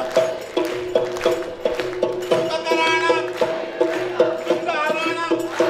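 An upbeat Ayurvedic song: a singer's voice over a rhythm of short, repeated chords and percussion.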